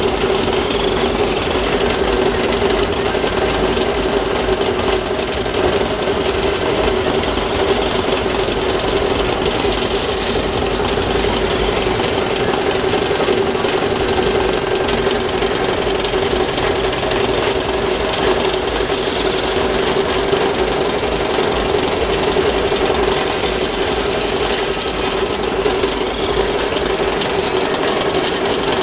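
Hydraulic pump of a 1/14-scale Lesu ET30H RC wheeled excavator running with a steady mechanical whine as the machine digs, with brief hissing about ten seconds in and again near the end.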